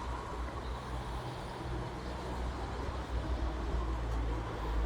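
Low, steady background rumble, growing louder near the end.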